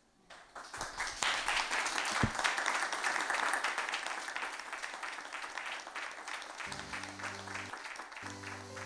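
Audience applauding in a small room, loudest in the first few seconds and then thinning out. About two-thirds of the way through, soft music with long held notes comes in under the clapping.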